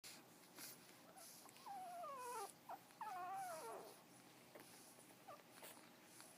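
Frenchton puppy whimpering in its sleep: two drawn-out whines, each falling in pitch, the first starting a bit over a second in and the second around three seconds in, with a few short faint squeaks between and after.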